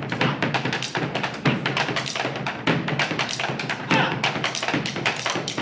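Bombos legüeros, the Argentine folk bass drums, beaten with sticks in a fast, driving rhythm of many strokes a second.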